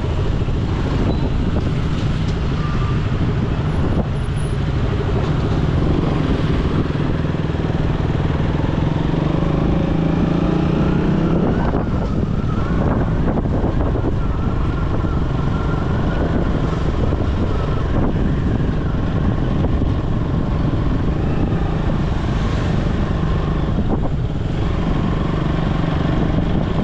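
A motor vehicle's engine running steadily with road noise. It rises in pitch once as it speeds up and drops back about halfway through.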